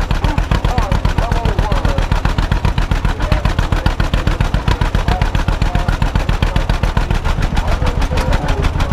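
1952 John Deere B's two-cylinder engine running under the driver, its exhaust giving a rapid, even popping.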